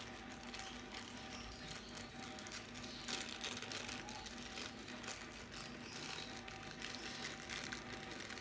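Clear plastic bags rustling and crinkling as they are opened and small bagged action-camera mounts are pulled out and handled, over a faint steady hum.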